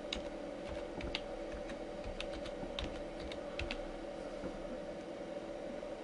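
Computer keyboard typing: a string of separate key clicks over the first four seconds or so, then stopping, with a steady hum underneath.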